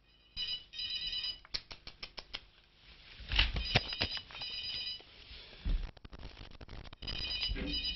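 Electronic telephone ringer trilling in short repeated bursts, a high warbling ring, among sharp clicks and knocks.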